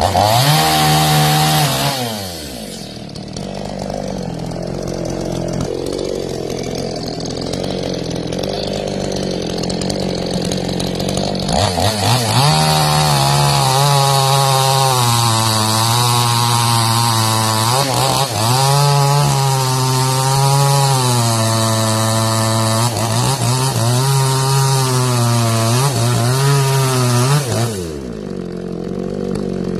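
Two-stroke chainsaw revs briefly, then idles. It then runs at full throttle cutting through mangosteen wood for about sixteen seconds, its pitch dipping and recovering as the chain bites. Near the end it drops back to idle.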